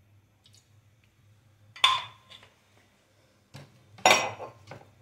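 Metal kitchenware clanking twice, about two seconds in and again about four seconds in, the first clank ringing briefly; a lighter knock comes just before the second.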